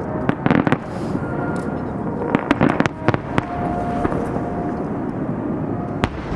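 Fireworks display bursting: quick clusters of sharp crackling bangs about half a second in and again from about two and a half to three seconds in, then a single sharp bang near the end, over a steady background rumble.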